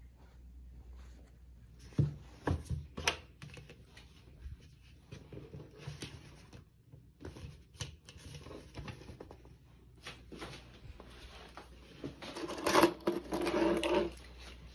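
Hands picking up small objects from a desk: glasses, a paperback book and a cloth pouch. There are a few sharp light knocks and clicks about two seconds in, soft rustling of cloth and paper after that, and a louder spell of handling noise near the end.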